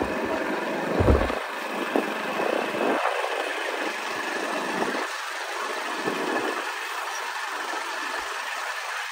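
Motorcycle running while being ridden, with wind buffeting the microphone in uneven low gusts, the strongest about a second in.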